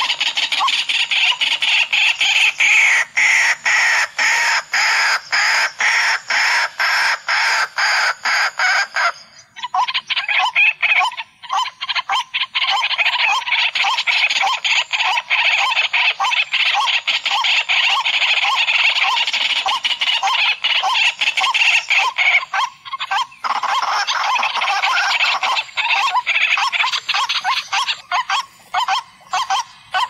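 Waterhen (kurowak) calls played as a bird lure: a loud, fast run of evenly repeated notes that keeps going, breaking off briefly about nine seconds in and again just after twenty-three seconds.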